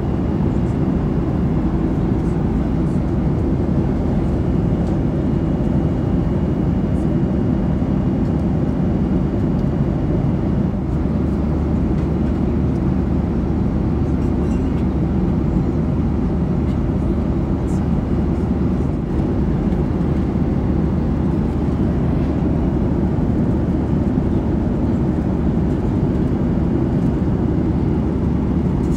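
Steady cabin noise of a Boeing 737-800 in flight: an even rumble of engines and airflow, heaviest in the low end.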